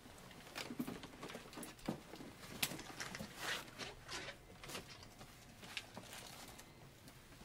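Scattered light knocks, scuffs and rustles at an irregular pace, a few with a dull thud. The loudest is a sharp knock about two and a half seconds in.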